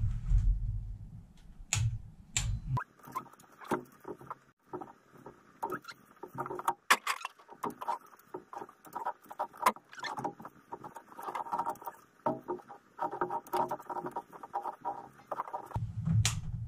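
Ratchet of a torque wrench clicking in rapid runs as cylinder head bolts are tightened in the second torque stage, with scattered sharper metallic clicks and knocks.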